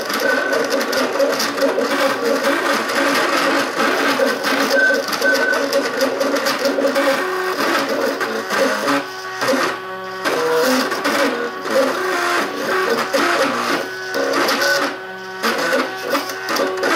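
MakerBot Cupcake CNC 3D printer running a print. Its stepper motors whine in held tones that jump from pitch to pitch as the print head and build platform move.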